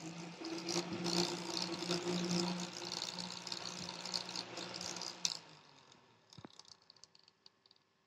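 Small DC fan running, its motor humming and blades whirring, then a click about five seconds in as it is switched off and the sound winds down.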